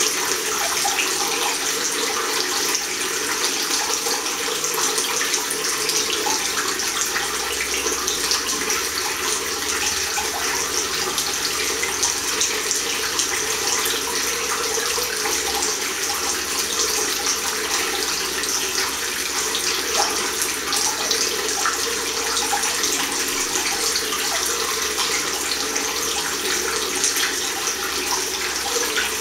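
Bathroom basin tap running steadily, a thin stream of water splashing into a ceramic washbasin and down the open drain.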